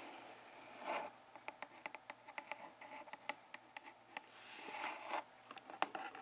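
Long fingernails tapping quickly and irregularly on a cardboard camera box, with brief scratchy rustles of fingers dragging over the cardboard about a second in and again near the five-second mark.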